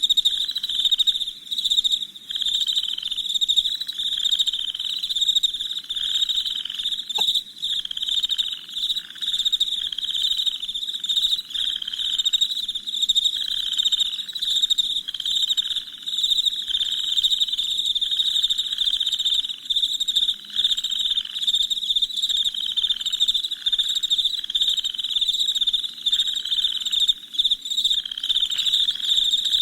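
Night chorus of crickets chirping: a dense high trill that never stops, over a lower pulsing call that repeats about once a second.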